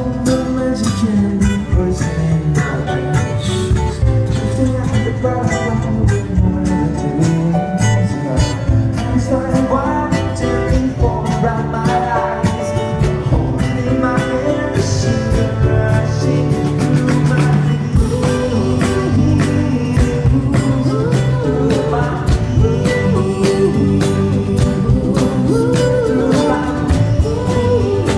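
A band playing a country-style tune with guitars over a steady beat, with singing at times.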